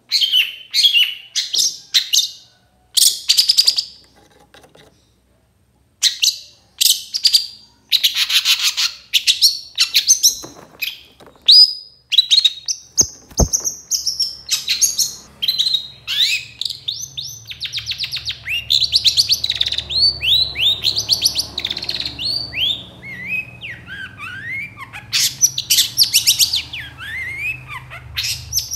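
Long-tailed shrike (cendet) singing loudly: bursts of scratchy chatter and fast trills, then strings of quick falling whistled notes. A brief low knock comes about halfway through, and after it a faint low hum runs underneath.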